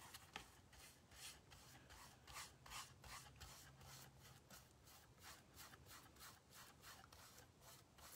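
Faint, quick strokes of a paintbrush rubbing paint onto a wooden board, about four strokes a second.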